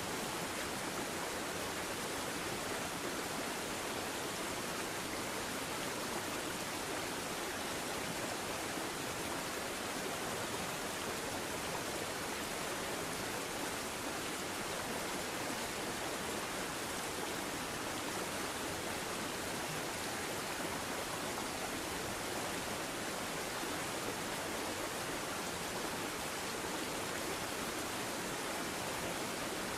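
Steady, unbroken rushing of creek water, an even hiss with no change in level.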